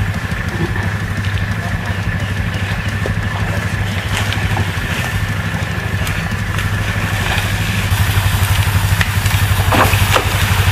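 A small engine running steadily, a low pulsing hum, with indistinct voices.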